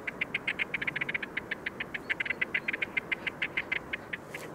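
A pair of great crested grebes calling during their head-shaking courtship display: a fast, even ticking rattle of about ten clicks a second that stops near the end.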